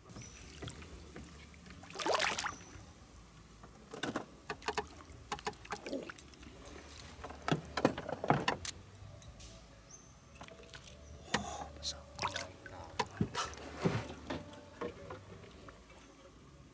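A hooked fish splashing and thrashing at the water's surface as it is brought to the boat and landed, with irregular sharp splashes, the loudest about two seconds in, around eight seconds in, and several more near the end.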